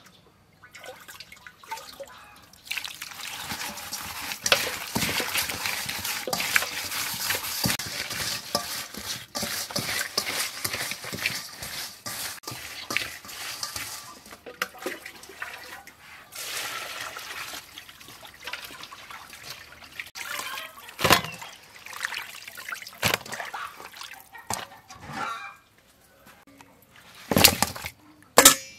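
Hands rubbing small river fish with coarse salt in an aluminium bowl to clean them: a steady wet rubbing noise for about the first half, then more broken handling with a few sharp knocks near the end.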